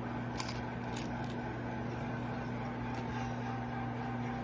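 Steady low electrical hum, with a few faint clicks of chewing on a mouthful of fried milkfish and rice.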